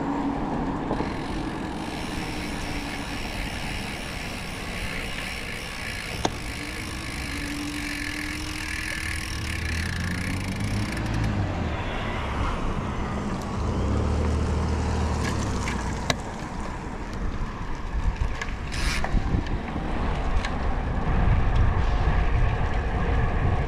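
Road and wind noise of a ride on wet roads, with wind buffeting the microphone. The buffeting becomes gustier and more uneven in the last few seconds.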